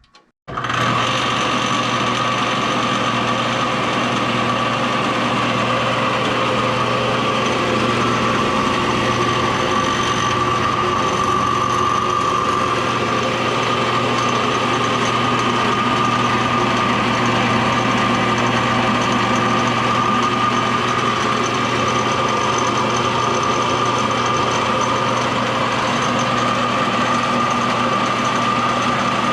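Old belt-driven Craftsman table saw switched on about half a second in, then running steadily at speed with a low hum and a steady high whine. It sounds wonky and rattly, with the belt vibrating, which the owners suspect comes from worn bearings or a loose pulley.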